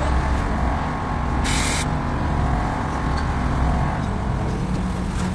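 Mobile crane's diesel engine running steadily as it hoists a steel electric pole, with a short hiss about a second and a half in.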